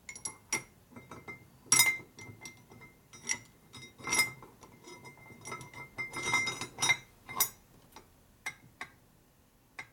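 Irregular metal-on-metal clinks and taps, louder about two and four seconds in, as a Harley shovelhead's rocker-arm shafts and rocker arms are handled and fitted into the rocker box to check a tight arm's clearance.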